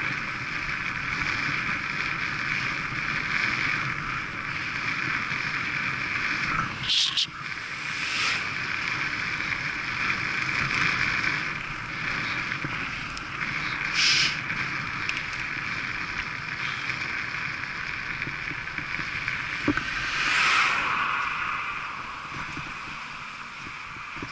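Steady wind rush over the camera microphone and road noise from a bicycle ridden at about 20 mph, with a few brief louder surges; it eases near the end as the bike slows.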